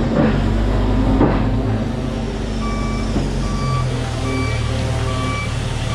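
A heavy vehicle's engine running while its reversing alarm beeps at a steady pace, a little more than once a second. The beeping starts a little under three seconds in. Two brief sharp noises come in the first second and a half.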